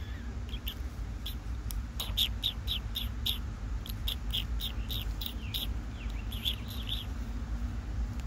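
Raccoons chirping: short, high-pitched chirps in quick runs of about three or four a second, over a steady low rumble.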